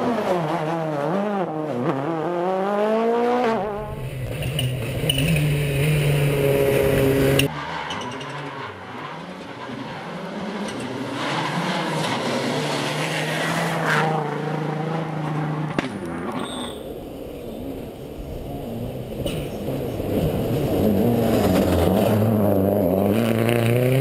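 Rally cars at full throttle on a special stage, engines revving up and dropping back through the gear changes. Several short passes follow one another with sudden cuts between them.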